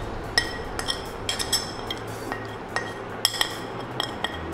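White ceramic plate knocking and scraping against the rim of a ceramic bowl as spices are tipped off it: about a dozen sharp, ringing clinks at irregular intervals.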